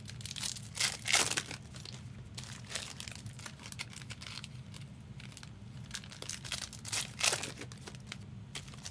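Foil trading-card pack wrappers crinkling and tearing in several short bursts as packs are ripped open, over a low steady hum.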